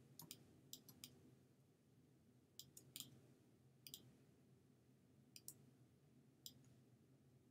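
Faint, sharp clicks of a computer mouse, a dozen or so at irregular intervals, some in quick pairs, over a faint steady room hum.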